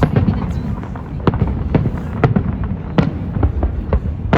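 New Year fireworks going off in rapid, irregular succession: a dozen or so sharp bangs over a continuous low rumble of more distant explosions.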